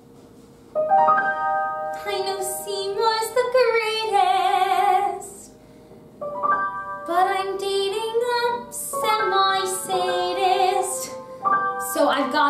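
A woman singing a musical-theatre song in a classical style with vibrato, over piano accompaniment. The piano comes in about a second in, with a short break in the music around the middle.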